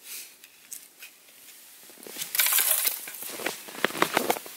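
Footsteps crunching in snow as someone walks right up to the microphone, followed by rustling and a quick run of sharp clicks close up as the camera is handled.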